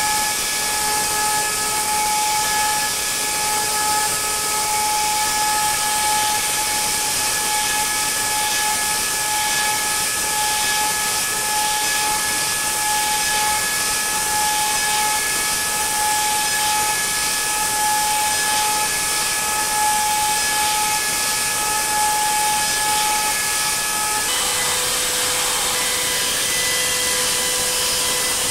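High-speed milling machine hard-milling HRC40 tool steel: a steady high whine of spindle and cutter over a constant hiss of cutting. About 24 seconds in, the whine changes abruptly to a different, lower pitch as the cut changes.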